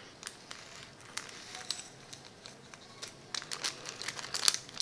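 Small plastic seasoning sachet crinkling as it is handled and torn open to tip out dried vegetable flakes, a scatter of small sharp crackles that get busier about three seconds in.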